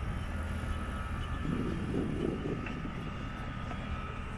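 Steady drone of engines and airflow inside a passenger airliner's cabin: a low hum with a faint steady whine above it.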